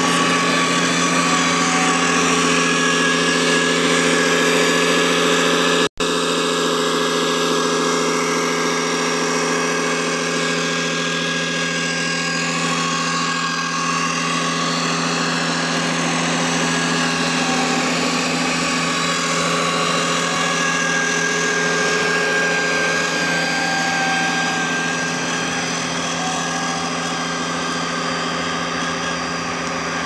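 Radio-controlled scale model eight-wheel dump truck driving slowly, giving a steady engine-like drone made of several held tones. The sound breaks off for an instant about six seconds in, then carries on, easing slightly near the end.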